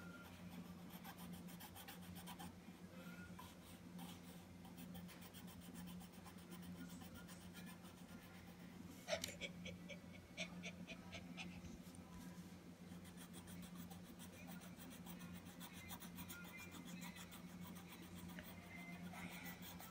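Faint scratching of a coloured pencil shading on paper, with a child's breathing close to the microphone, over a steady low hum. A short, louder noise comes about nine seconds in.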